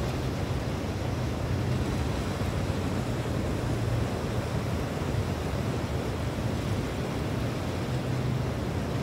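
Steady wind and surf noise, with wind rumbling on the microphone.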